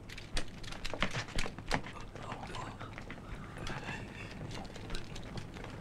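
Footsteps of many people walking out together, a scatter of irregular knocks and shuffles, with faint murmured voices among them.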